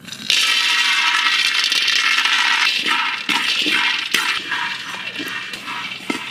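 Red-skinned peanuts poured into a steel wok for roasting: a dense rattling clatter of nuts hitting the metal for about three seconds, thinning to scattered clicks as they settle and are stirred with a spatula.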